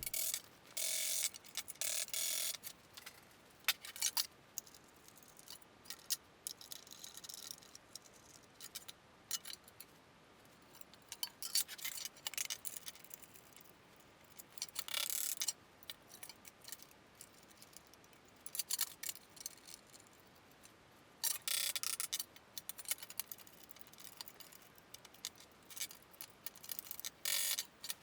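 Scattered light clicks, taps and short metallic rattles and scrapes from hand work on the sheet-steel tool chest, such as setting clamps to straighten a bent edge, with quiet gaps between them.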